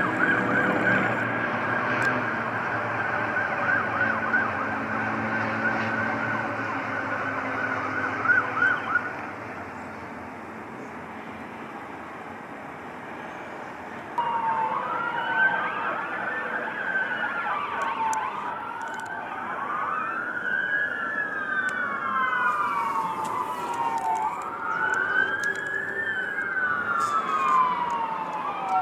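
Emergency vehicle sirens. First a fast warbling yelp siren for about nine seconds, then a few seconds of steady traffic noise. A fire engine's slow wail siren then rises and falls about every three seconds, with overlapping copies of the tone.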